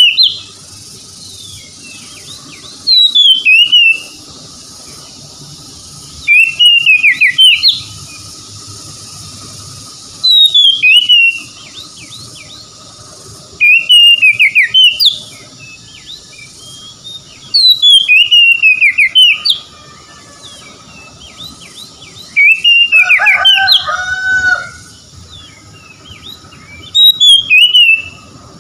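Oriental magpie-robin singing loud, clear whistled phrases, each about a second long and repeated every three to four seconds. One phrase about three-quarters of the way through drops into a lower, rattling part.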